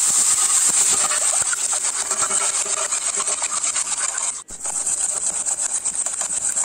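Steel spoon and ladle scraping and stirring against a stainless steel pan, mixing curd into the spiced masala: a rapid, continuous run of rasping strokes that breaks off briefly about four and a half seconds in.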